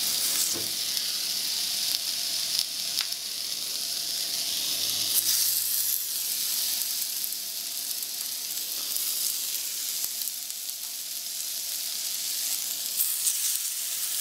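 Mango slices sizzling on a hot grill: a steady hiss with a few brief crackles and pops.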